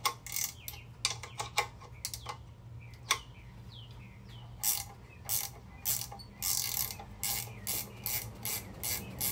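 Ratcheting wrench clicking as it works a 9/16 bolt at the end of a rear axle housing. The clicks come unevenly at first, then settle into a steady run of about two a second from about halfway.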